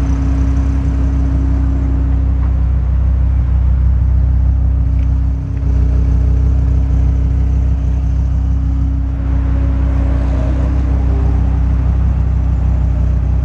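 2001 Dodge Viper RT/10's 8.0-litre V10 idling steadily through its center dual exhaust pipes, a loud, even low rumble with no revving.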